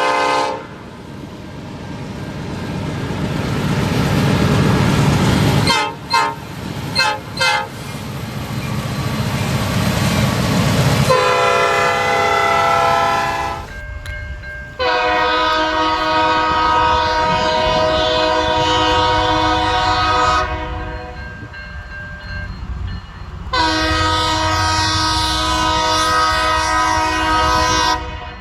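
EMD diesel locomotive leading a Loram rail grinder train: its engine rumble grows as it nears, then its multi-chime air horn sounds three long blasts, the middle one longest.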